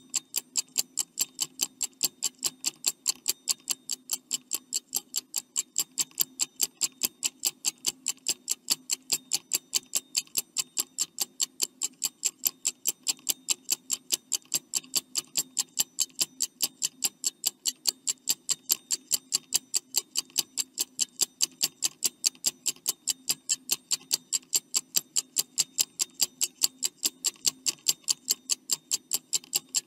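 Stopwatch ticking sound effect: rapid, evenly spaced ticks, several a second, running steadily as a countdown timer.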